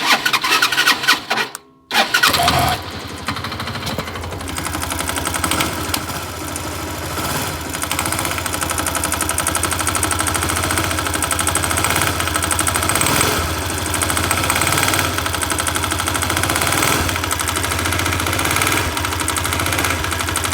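A 167FMM single-cylinder motorcycle engine being cranked on the electric starter, catching about two seconds in, then running with small swells in speed. It has the engine knock the owner is demonstrating, which he says grows under load.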